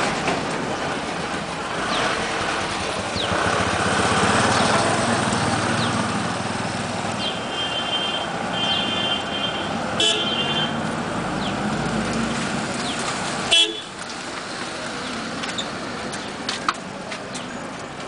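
Street traffic noise with a vehicle horn sounding in several short toots a little under halfway through, and one sharp knock about three-quarters of the way in.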